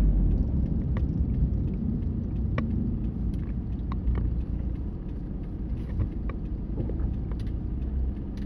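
Car interior noise while driving: a steady low rumble of engine and tyres, shifting in level as a strong crosswind buffets the car, with scattered light ticks and taps.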